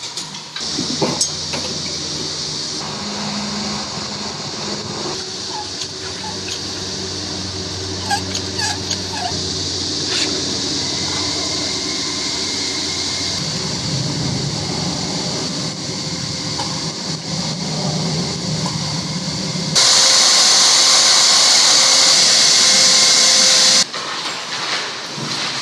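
An electric motor-driven tool running steadily, with a louder stretch of about four seconds near the end.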